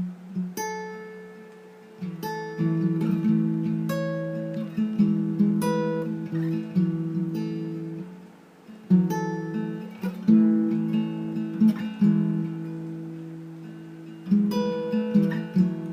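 Acoustic guitar music: slow picked chords, each struck and left to ring and fade, in a gently repeating pattern.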